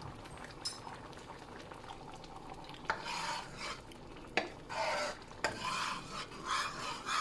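A spoon stirring simmering dal in a pot: after a quieter start with only a low bubbling haze, the spoon scrapes round the pot in a run of strokes about every half second from about three seconds in.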